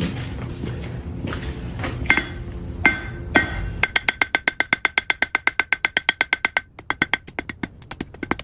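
Blacksmith's hammer striking hot iron on an anvil, with a bright metallic ring. A few separate blows come first over a low rumble, then a fast, even run of about nine light blows a second from about four seconds in, slowing to spaced blows near the end.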